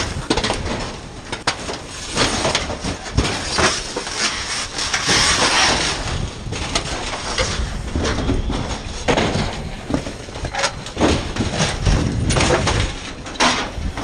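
Fire hose stream spraying water onto burning debris: a rushing hiss that swells in the middle, with scattered crackles and knocks.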